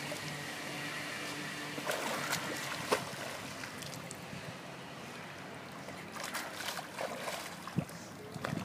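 Swimming-pool water splashing and sloshing as a child dives under and kicks her legs up, with a few sharp splashes.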